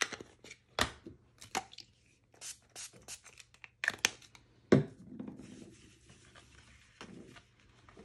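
Craft supplies handled on a non-stick craft mat: a string of sharp clicks and taps from a Distress Oxide ink pad, a water spray bottle and a sheet of cardstock, the loudest a little under five seconds in, followed by a short rustle as water goes onto the ink smear.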